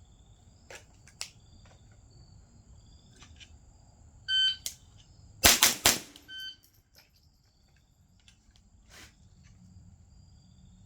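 A shot timer beeps, about a second later three quick .22 rifle shots fire in under half a second, and the timer beeps again as the two-second par time ends; another start beep comes near the end. Crickets chirp in the background.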